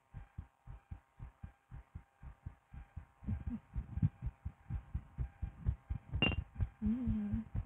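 Human heartbeat picked up through a stethoscope on the chest: a quick, steady run of soft low thumps that grow louder about three seconds in. A brief scratchy click near the end, then a short wavering low tone, over a faint steady hum.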